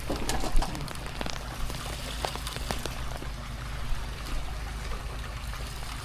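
Water splashing and dripping in scattered spatters, over the steady low hum of a pressure-washing rig's engine running.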